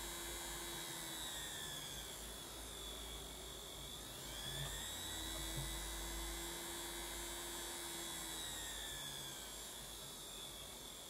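A sewing-machine universal motor running unloaded on DC from a bench power supply, giving a steady whine. The pitch drops in the first couple of seconds, climbs again about four seconds in, then sinks near the end as the supply voltage is turned down, up and down, and the motor slows and speeds up with it.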